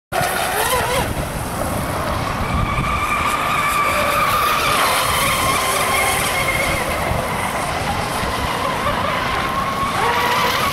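Radio-controlled speedboats running flat out across a pond: a loud, steady high motor whine whose pitch dips and rises as the boats pass and turn.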